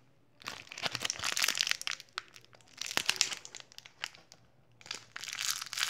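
Crumpled paper wrapping crinkling and rustling as hands pull it open to unwrap a parcel, in three bursts with short pauses between.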